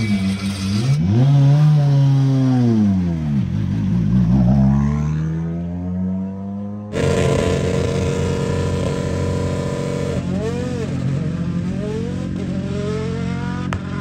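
A car engine revving, its pitch rising and falling in slow sweeps as it pulls away. After a sudden cut, a rally car's engine idles steadily, with two short throttle blips near the end.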